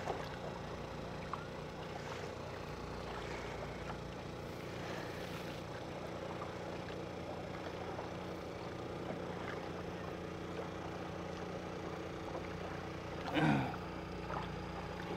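Small boat under way on a calm lake, with a steady low hum. A brief pitch-sliding sound comes about thirteen seconds in.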